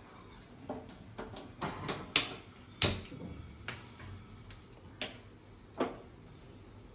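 A string of separate sharp clicks and knocks, the loudest about two and three seconds in. They come from a gas stove's knob being turned to light a burner and a kadai holding oil being set down and shifted on the stove's metal pan supports.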